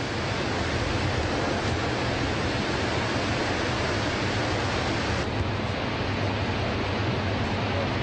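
Niagara Falls' plunging water giving a steady, unbroken rushing roar. The highest hiss drops slightly about five seconds in.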